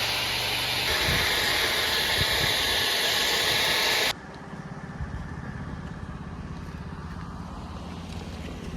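Pressure-washer spray hissing loudly and steadily, cutting off suddenly about four seconds in, leaving the washer's engine running steadily on its own.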